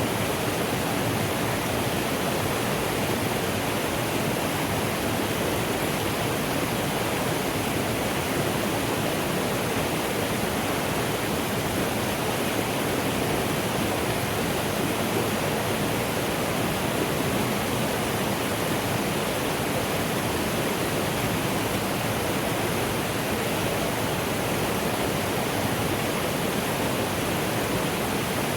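Mountain stream flowing, a steady rushing of water.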